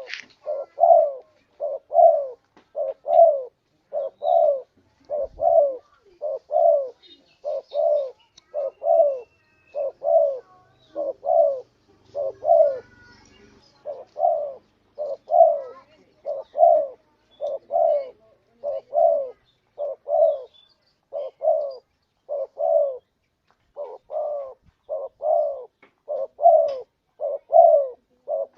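Spotted dove (tekukur) cooing over and over, mellow notes about half a second long in short groups of two or three, with brief pauses between groups. It is the call used as a lure for wild tekukur.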